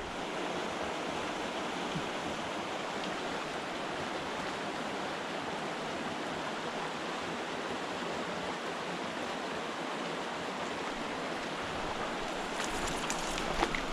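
A small mountain stream rushing steadily over rocks. Near the end a few sharp clicks and a low rumble come in over it.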